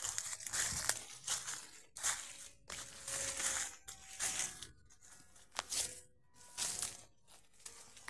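Footsteps crunching through dry fallen leaves at a walking pace, with leafy branches brushing past.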